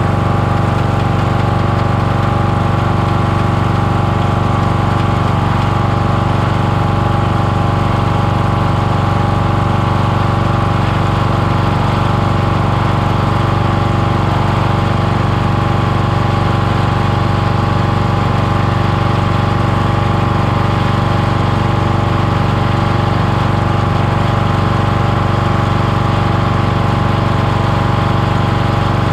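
Kohler engine of a Toro LX460 lawn tractor running steadily at one constant speed.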